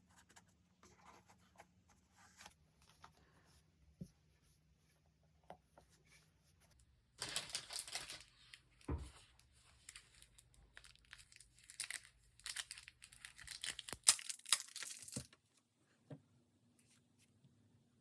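Paper being torn and crinkled by hand. Faint handling sounds come first, then about eight seconds of louder tearing and rustling with a sharp click near the end.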